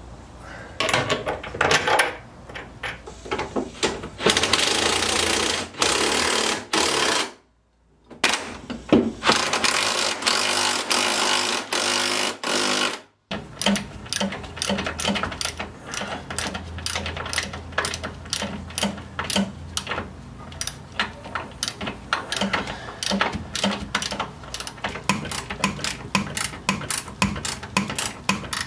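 Power tool running in several bursts of one to three seconds, then a long stretch of quick, evenly spaced clicking.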